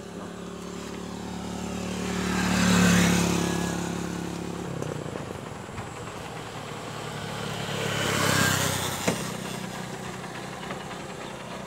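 Two motor vehicles passing by on a road, one about three seconds in and another at about eight and a half seconds, each growing louder and then fading with its engine note dropping as it goes past.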